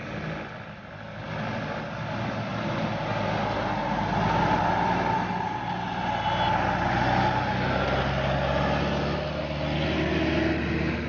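Heavy diesel bus engine running close by under load, getting louder over the first few seconds and then staying loud, with a steady whine over it in the middle.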